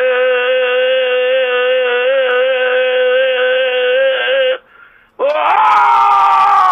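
A voice holding one long, drawn-out note with a slight waver for about four and a half seconds, breaking off briefly, then a second long note that swoops up at its start and slowly sinks.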